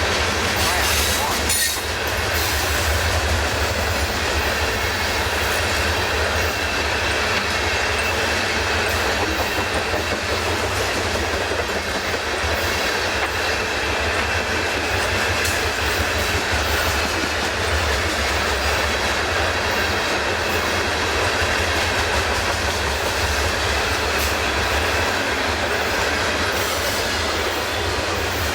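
Freight train cars rolling steadily past, a continuous noise of steel wheels on rail.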